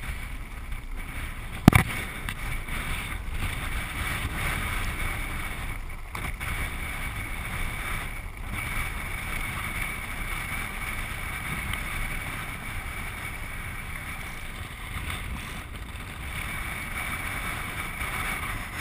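Land yacht under sail across a dry lake bed: a steady rush of wheels rolling on the hard playa and wind over the camera, with one sharp knock about two seconds in.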